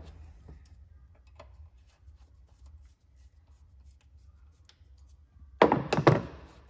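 Light clicks and rubbing of hands and a small hand tool working at hoses and fittings on an engine's intake manifold. Near the end, a short burst of several loud knocks as the parts are pulled and shifted.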